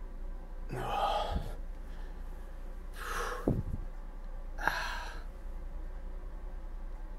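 A man breathing out hard three times, about two seconds apart, as he strains to hold a flexing pose. A low steady hum runs underneath.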